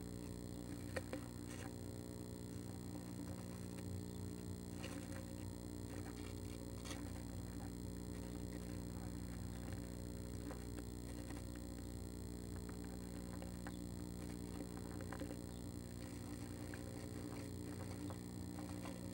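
Steady low electrical hum of a nest-box camera's audio, with a few faint scratches and clicks as a female northern flicker shifts about on the wood shavings.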